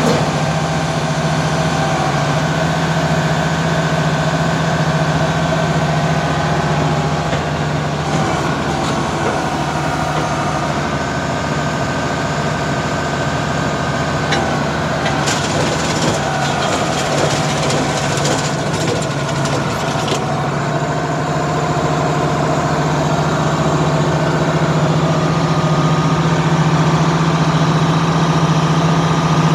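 An engine idling steadily, with a burst of rattling and clicking from about halfway through for some five seconds.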